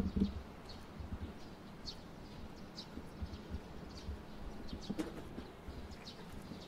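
Small birds chirping, short high chirps repeating every half second to a second, over irregular low thuds of footsteps, the strongest near the start and about five seconds in.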